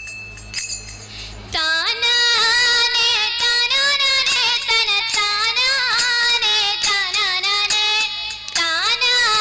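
A girl's singing voice through stage microphones, coming in about a second and a half in with long, wavering held phrases. Before it there is a low steady hum.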